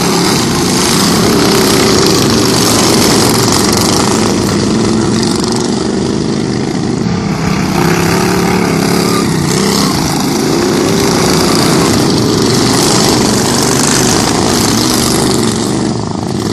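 Racing lawn mowers' small Briggs & Stratton engines running hard, their pitch rising and falling as they rev.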